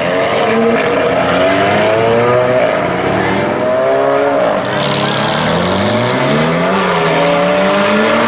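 Performance car engine revving hard and shifting gears, its pitch climbing and dropping several times.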